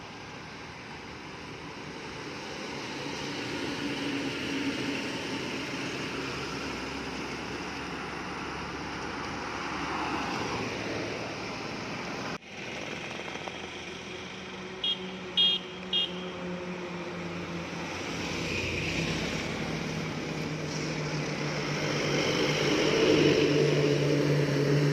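Heavy road traffic: truck and bus engines and tyre noise as vehicles pass on the road. A little past halfway come three short, loud, high-pitched beeps. Near the end a heavy vehicle's engine grows louder as it draws near.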